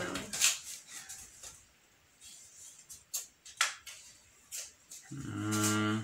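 Short, sharp sniffs and breaths through the nose, five or so spread out, as twisted paper strips tickle inside the nostrils. Near the end comes a low, steady hum held for about a second, louder than the sniffs.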